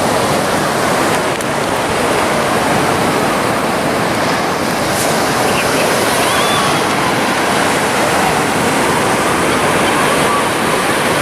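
Ocean surf breaking on a beach: a steady, even rush of waves, with the distant chatter of a crowd of beachgoers mixed in.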